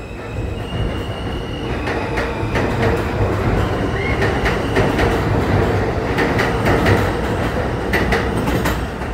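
New York City Subway M train pulling out of an elevated station and running past, getting louder as it goes. Its wheels clack over rail joints under a steady high whine.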